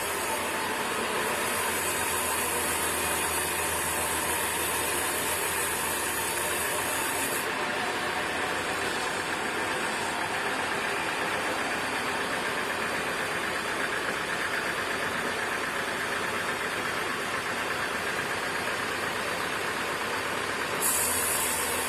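Sawmill machinery running steadily, a dense mechanical din with a low engine-like hum. A high hiss drops out about seven seconds in and comes back near the end.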